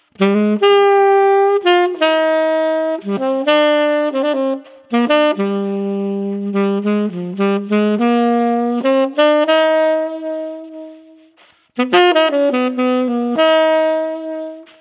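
Solo tenor saxophone with a Mouthpiece Cafe Espresso mouthpiece playing a jazz line. The first phrase ends on a long held note that fades away, and a new phrase starts about twelve seconds in.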